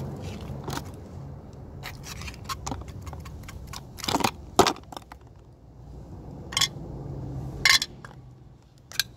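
A series of sharp, irregular clicks and clinks of hard objects, about eight in all and loudest around the middle, over a steady low hum.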